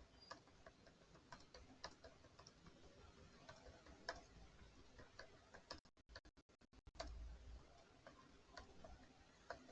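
Near silence with faint, irregular clicks scattered throughout.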